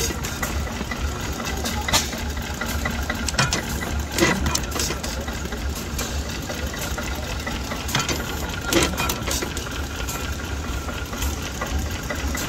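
Vintage vertical stationary engine with twin flywheels running slowly, giving sharp clicks every second or two at uneven intervals over a steady low rumble.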